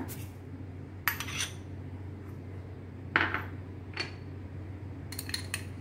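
Scattered light clinks and knocks against a stainless steel mixing bowl as chopped coriander is added to the dal by hand, over a steady low hum.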